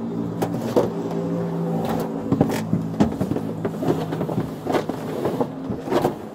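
Bumps, scrapes and clothing rustle as a handcuffed man climbs onto the hard plastic rear seat of a police car, over a steady hum from the running car.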